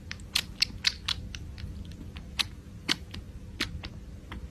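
Kitten suckling milk from a small feeding bottle: irregular sucking clicks, about two or three a second.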